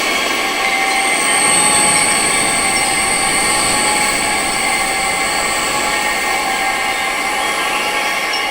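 Synthesized wind-noise soundscape for tinnitus therapy: a steady rush of wind noise layered with many sustained high-pitched tones. A very high, whistle-like tone swells about a second in and then slowly fades.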